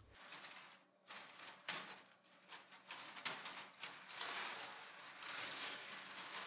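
LEGO 10261 Roller Coaster trains running along the plastic track: a few separate clicks in the first two seconds, then a steady clattering rattle of plastic wheels on plastic rails from about three seconds in.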